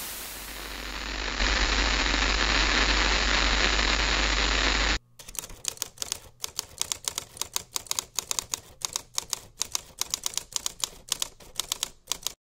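TV static hiss with a low hum underneath for about five seconds, cutting off suddenly. Then a typewriter sound effect: rapid, irregular keystrokes several times a second, stopping just before the end.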